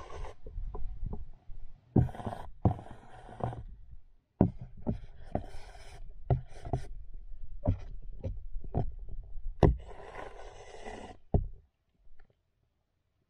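Irregular knocks, scrapes and rubbing picked up by an underwater action camera as Staurotypus musk turtles bump and claw against it, with a longer stretch of scraping about ten seconds in.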